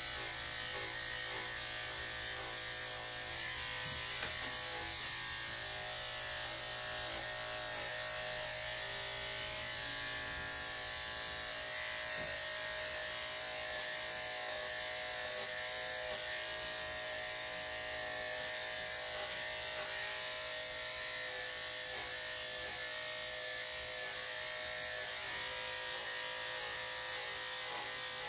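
Corded electric dog clipper with a #5 blade running steadily as it shaves through a Lhasa Apso's thick coat, a constant motor hum with a buzzing hiss from the blade.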